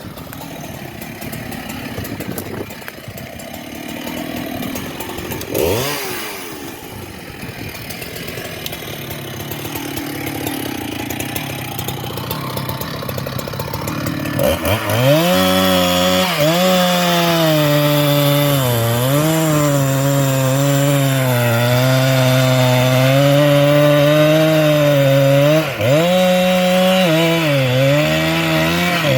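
Two-stroke chainsaw cutting into wood. From about halfway through it runs at high revs, its pitch dipping and recovering again and again as the chain loads in the cut. Before that there is a quieter, noisy stretch with one brief rising and falling whine about six seconds in.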